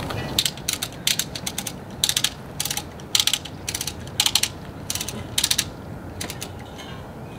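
Hand socket ratchet clicking in short runs of rapid clicks, driving the mounting bolts of steel side armor into the vehicle's brackets. The clicking stops near the end.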